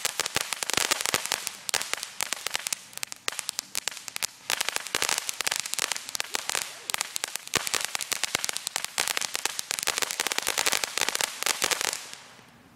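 Ground fountain firework spraying sparks with rapid, dense crackling and popping. It fades and stops near the end.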